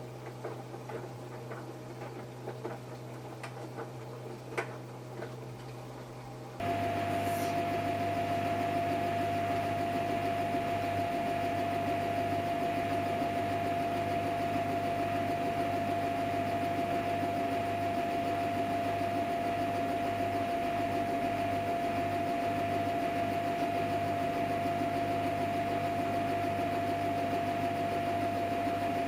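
Samsung Eco Bubble washing machine running on a cotton wash, at first a quiet low hum with faint ticks. About six seconds in it jumps to a louder steady hum with a constant high whine.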